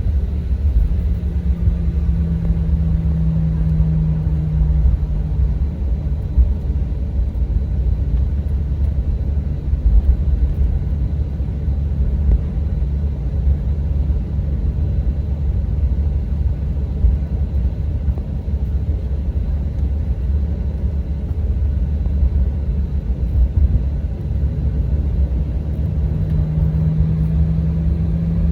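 Steady low rumble of a Boeing 737-800 heard inside the passenger cabin: the CFM56 engines and airflow, with a hum that swells slightly near the start and near the end.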